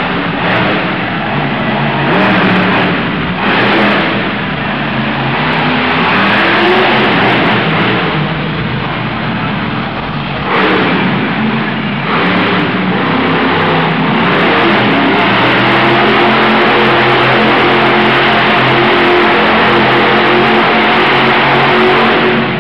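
Monster truck's supercharged V8 revving hard, rising and falling with the throttle, then held at high revs for the last eight seconds or so while the truck spins donuts in the dirt.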